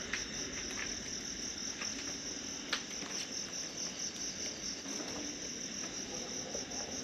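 Crickets chirping, a steady high-pitched pulsing trill, with a few faint clicks, the sharpest about two and a half seconds in.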